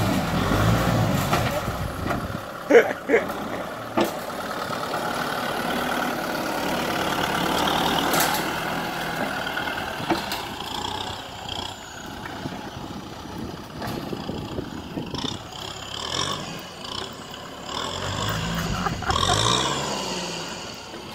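Kubota M6040SU tractor's diesel engine running under load as it pushes sand with its front dozer blade, the revs rising and falling. A few sharp knocks come about three to four seconds in.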